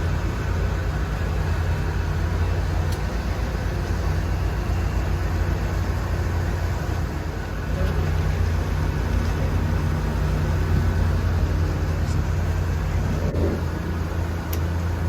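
A tour boat's motor running steadily under way, a continuous low drone with a broad rush over it that dips slightly about halfway through.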